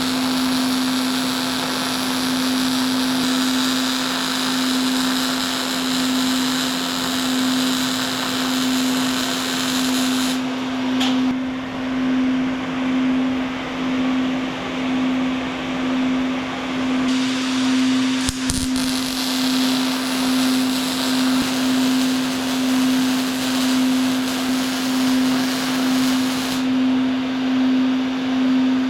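Welding machine running, with a steady hum at one pitch and a hiss over it. The hiss cuts out about a third of the way in, comes back past the middle and cuts out again near the end. While it is off, the hum rises and falls about once a second.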